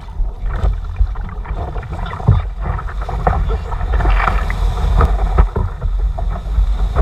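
Wind buffeting the microphone over water rushing and splashing around an outrigger canoe riding through surf, with many short sharp splashes and knocks along the way.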